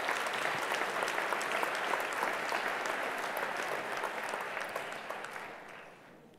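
A large audience applauding: dense, steady clapping that fades away near the end.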